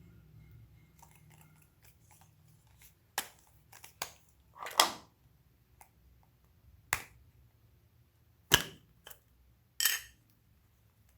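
Slime being pressed and worked by hand, giving about eight sharp pops and clicks at irregular moments, the loudest about a third of the way in and again about three quarters of the way in.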